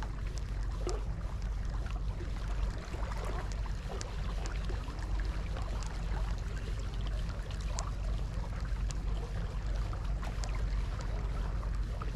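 Steady low rumble of wind on the microphone together with small sea waves lapping at the rocks, with scattered faint clicks and ticks throughout.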